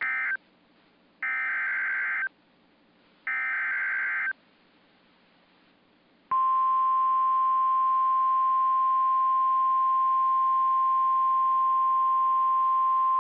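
Emergency Alert System SAME header on NOAA Weather Radio: the tail of one data burst, then two more buzzy two-tone digital bursts, each about a second long and a second apart. About six seconds in, the loud, steady 1050 Hz warning alarm tone starts; it signals that a new warning is about to be read.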